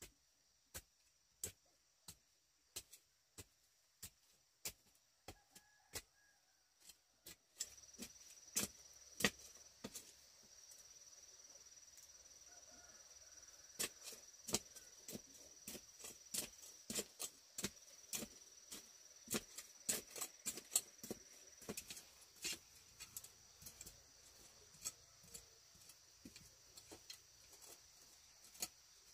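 A series of sharp knocks or taps, evenly spaced at about one and a half a second at first, then faster and irregular from about seven seconds in, over a steady high hiss.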